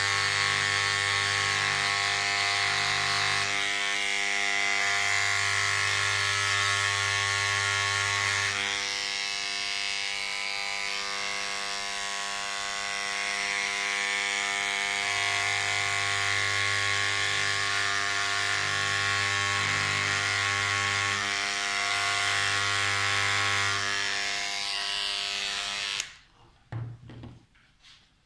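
A small handheld electric tool buzzing steadily while it is worked against a gold necklace to set a turquoise stone. It switches off about 26 seconds in, followed by a few faint taps.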